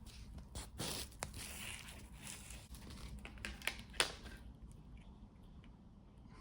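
Packaging crinkling and rustling as a new scooter deck is unwrapped by hand, with a few sharp clicks and taps; it dies down about four seconds in.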